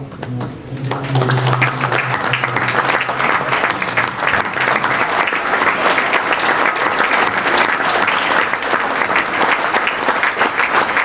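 Large audience clapping, starting about a second in and keeping up a steady applause.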